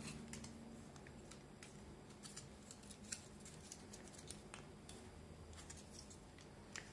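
Near silence with faint, scattered light clicks and ticks: small plastic parts and plastic wrap being handled.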